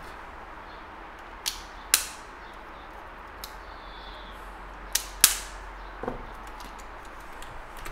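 A handful of sharp desk clicks and taps from work at the computer, about six in all, the loudest about two and five seconds in. A low steady hum runs underneath.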